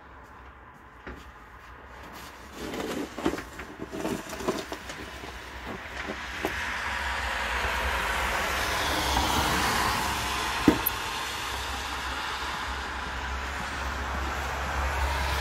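Snow shovel scraping and knocking on a snow-covered pavement a handful of times, then a louder steady rushing noise with a low rumble that swells over several seconds, with a single sharp click partway through.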